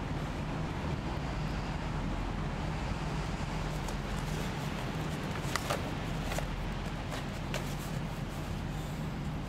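Steady low urban rumble and hum of a back alley, with a few light clicks and rustles from about the middle on as cardboard signs are handled.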